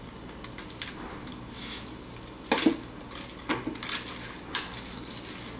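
Kitchen knife working through a soft, ripe eggfruit (canistel) on a wooden cutting board, with a few sharp knocks of the knife against the board, the loudest about two and a half seconds in, as the knife is laid down on the board.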